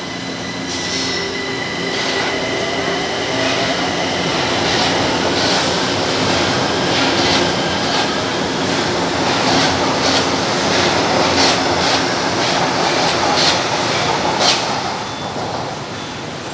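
A São Paulo Metro Line 1 train running past on elevated track. A steady rail rumble builds to its loudest in the second half, with scattered sharp clicks from the wheels on the rails, then falls away near the end.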